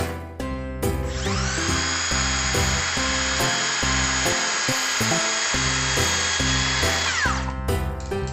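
A small electric power tool's motor whines as it spins up about a second in, runs at a steady speed, then winds down near the end. Background music with a steady beat plays throughout.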